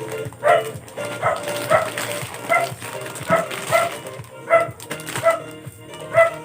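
A dog yipping over and over, short sharp yelps about twice a second, over background music.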